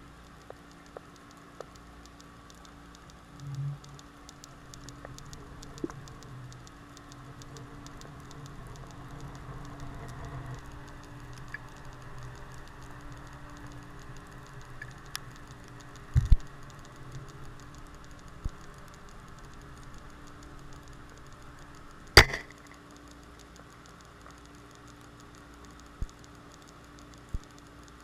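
Underwater sound picked up through a GoPro's waterproof housing on a tripod mount: a steady low hum with scattered faint clicks, and two sharp knocks about 16 and 22 seconds in, the second the loudest.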